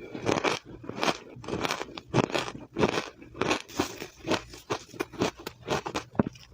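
Powdery, blender-crushed matcha ice being bitten and chewed close to the microphone: a quick, irregular run of crisp crunches, several a second.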